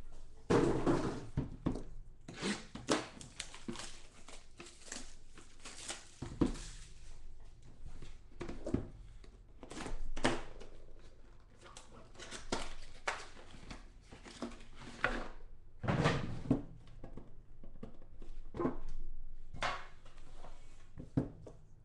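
A sealed cardboard box of trading cards being unwrapped and opened by hand: packaging crinkled and torn, cardboard slid and handled, in irregular rustles and light knocks.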